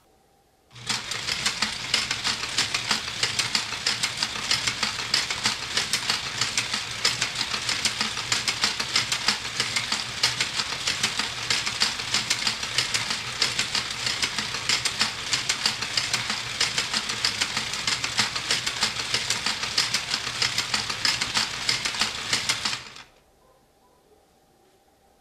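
Lego Technic mechanism running under motor power: plastic gears and beams clatter rapidly over a steady low motor hum. It starts abruptly about a second in and stops sharply near the end.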